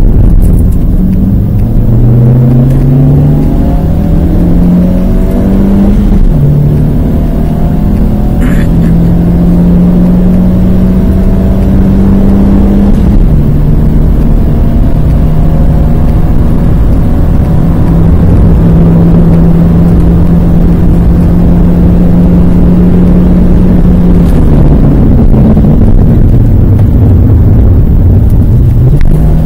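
Renault Twingo's 1.2-litre four-cylinder engine heard from inside the cabin under hard acceleration, pitch climbing and dropping at upshifts about 6 and 13 seconds in, then held at high revs. Heavy road and wind rumble runs underneath, and the engine note dips briefly and rises again near the end.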